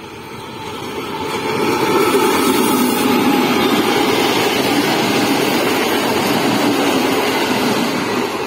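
Diesel locomotive hauling a passenger train passing close by: the engine noise swells over the first two seconds, then stays loud as the coaches roll past.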